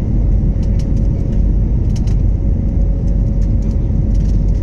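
Airbus A321neo jet engines and airflow heard as steady, deep cabin rumble, with a faint steady hum above it and light scattered ticks.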